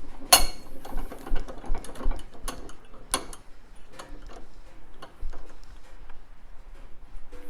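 Irregular metal clicks and knocks of hand tools and a bench vise working the 1964 Norton Atlas oil pump, with screws set into its backing plate to prise the plate off. The sharpest clicks come about a third of a second in and just after three seconds, with a light clatter in between.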